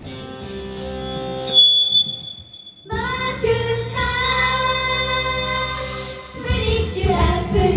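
Pop song performed live by a female idol trio singing into microphones over a backing track. The music starts softly and swells, breaks off briefly just before three seconds in, then comes back fuller and gets fuller still near the end.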